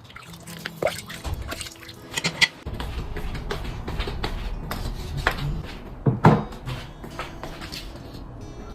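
Kitchen clatter: bowls, pots and utensils knocked and set down, with the sharpest clinks about two and a half and six seconds in, over a low steady rumble.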